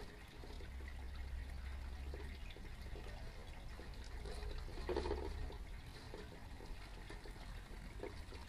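Steady hissing sizzle from a grill grate over a fire pit, with metal tongs tapping and scraping the grate now and then and a brief louder patch about five seconds in.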